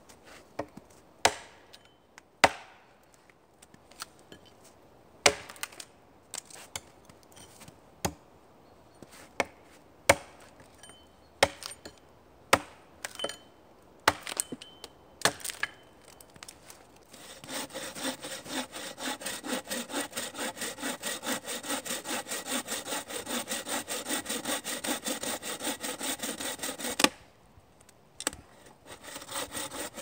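Sharp wooden knocks at irregular intervals, then about ten seconds of fast, even hand-sawing through a log with a bow saw. The sawing stops suddenly with a loud knock, and a few quieter strokes start again near the end.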